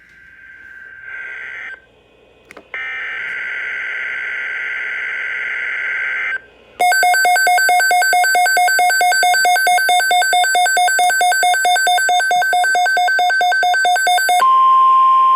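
NOAA Weather Radio alert opening: buzzy digital header tones, then a loud rapidly pulsing alarm beep for about eight seconds, then a steady single-pitched 1050 Hz warning alarm tone starting near the end.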